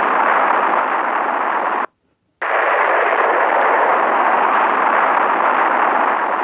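Rocket engine sound effect: a steady rushing noise of rocket exhaust that cuts out for about half a second near two seconds in, then comes back and stops abruptly near the end.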